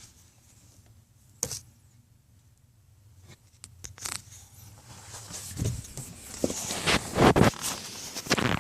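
Hands fumbling behind the dashboard around the wire harness and relay holder: a few scattered clicks, then rustling, scraping and knocks that get louder in the second half.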